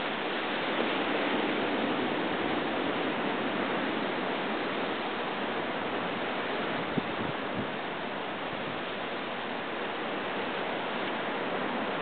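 Ocean surf washing steadily over a rocky shore, a continuous rushing hiss. There is a small tick about seven seconds in.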